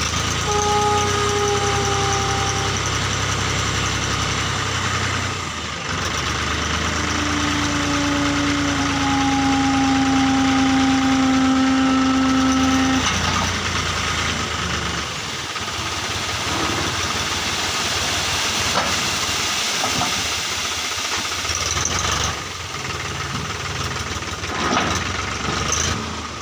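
A tractor engine runs under load while the hydraulic tipper raises the trailer bed, with a steady whine over the engine through the first half. From about halfway the whine stops and a steady rushing hiss of sand sliding off the tilted trailer takes over.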